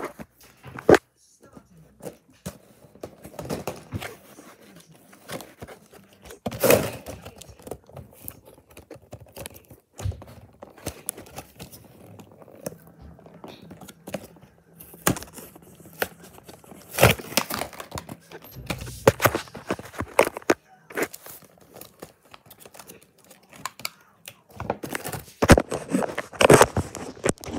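Plastic blister packs and card toy packaging being handled and torn open: irregular crinkling and tearing, with sharp knocks as the pieces are moved about.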